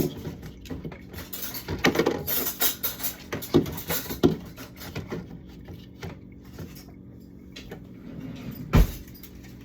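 Food containers and jars clattering and knocking as they are taken out of a refrigerator and set down. The knocks come thick in the first half, then thin out, with one loud knock near the end.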